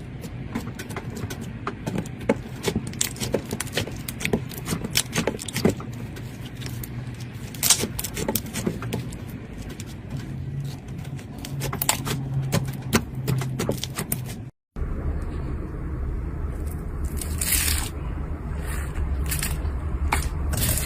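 Slime being squished and poked by hand: a dense run of sharp clicks and pops. After a brief break about 14 seconds in, a low hum runs under sparser clicks.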